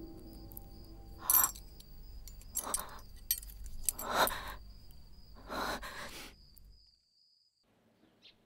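A woman crying, with four ragged sobbing breaths about a second and a half apart over a faint high steady tone. It fades to near silence near the end.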